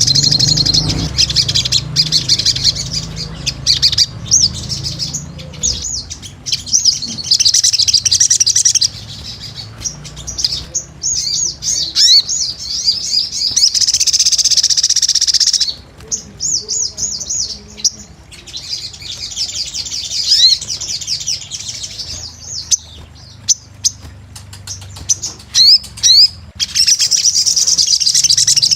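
Crimson sunbird singing: bursts of rapid, very high-pitched twittering trills lasting a couple of seconds each, with scattered thin chirps between the bursts.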